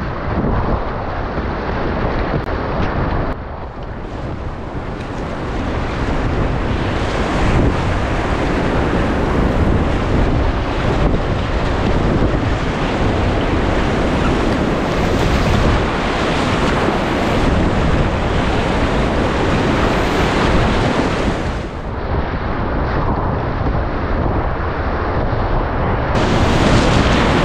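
Whitewater rapids rushing and splashing close around a kayak running through them, with paddle strokes splashing in the water. The rush grows louder about six seconds in, dips briefly past the middle, and swells again near the end.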